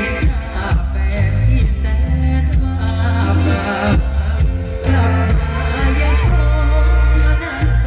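Live mor lam stage band music over a loud concert PA, with heavy bass and a steady beat, and a male singer's voice over it.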